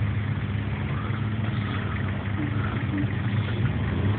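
4x4 off-road vehicle's engine running steadily, an even low hum that holds its pitch.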